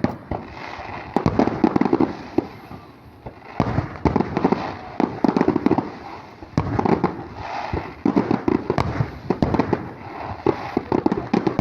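Aerial fireworks display: shells bursting in rapid volleys of sharp bangs and crackles, coming in waves every few seconds.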